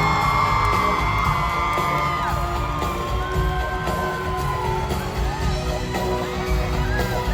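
Loud live band music at a pop concert, with the audience whooping and shrieking over it.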